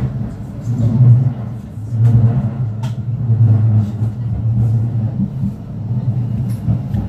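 Cabin running noise of a Bombardier Flexity 2 tram in motion: a steady low rumble from the wheels on the rails and the running gear, with a few faint clicks.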